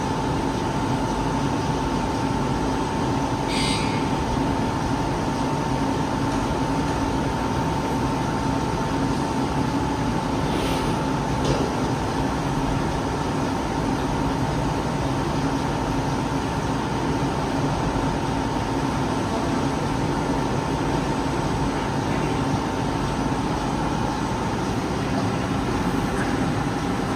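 IMTS TX400 CNC lathe running, a steady machine hum with a steady whine over it. Two brief high-pitched scrapes come about 4 and 11 seconds in.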